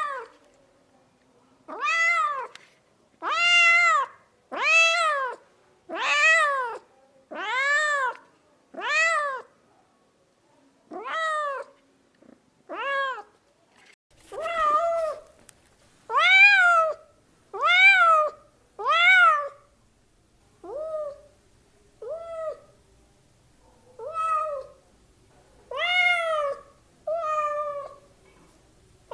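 House cat meowing over and over, about seventeen meows, each rising then falling in pitch, spaced a second or two apart. A faint low hum lies under the meows from about halfway.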